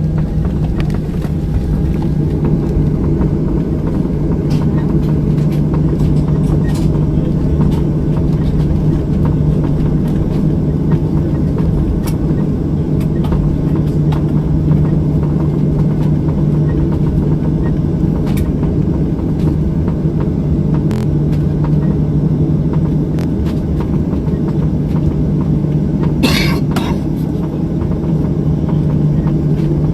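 Airliner cabin noise in flight: a steady engine and airflow drone with a constant low hum. About 26 seconds in there is a brief rustle or knock.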